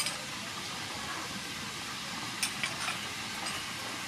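Chili sauce and oil sizzling steadily in a hot frying pan, with a few light clicks of a metal spoon against a small bowl about two and a half seconds in.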